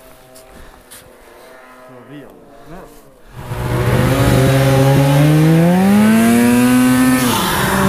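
A 2014 Polaris Pro RMK 800's turbocharged two-stroke twin comes in loud about three and a half seconds in, its pitch rising steadily as the sled accelerates. Near the end the pitch drops sharply as the throttle eases off, then it holds steady again.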